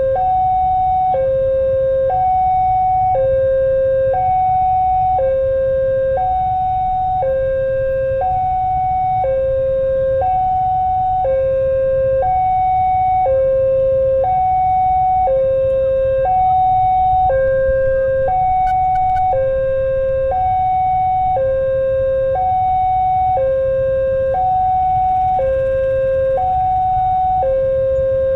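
Two-tone warning siren alternating between a lower and a higher note about once a second, steady and unbroken, over a continuous low rumble.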